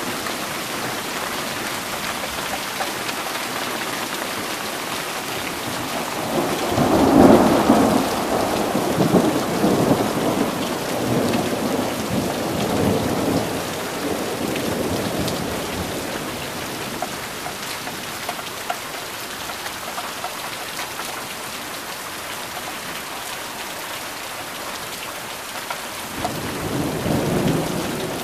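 Steady rain from a thunderstorm, with rolling thunder. A rumble swells up about a quarter of the way in, peaks, and rolls on for several seconds before fading. Another rumble begins near the end.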